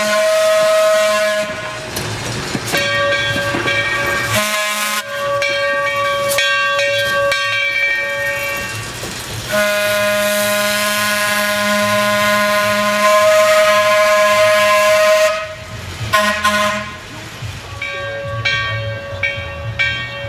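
Horn of Pacific Electric electric locomotive No. 1624 sounding a series of sustained blasts, ending long, long, short, long: the grade-crossing signal. Under the horn the train's wheels rumble and clatter as the coaches roll by.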